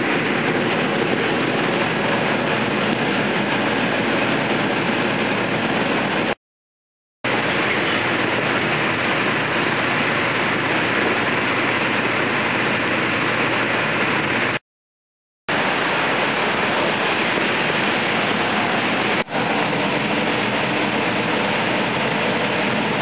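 Steady loud rush of the electric air blower that keeps an inflatable bounce house inflated. It cuts out abruptly twice, for under a second each time.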